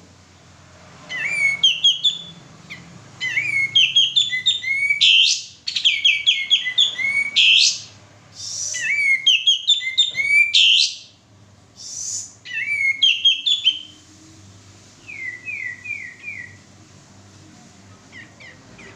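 Male sooty-headed bulbul singing loudly in bursts of rapid chattering, whistled phrases, each a second or two long with short pauses between, then a few softer repeated notes near the end.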